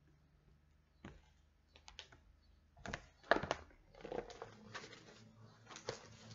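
A large picture book being handled and its page turned: scattered light taps and knocks with a little paper rustling, the sharpest knock about three seconds in.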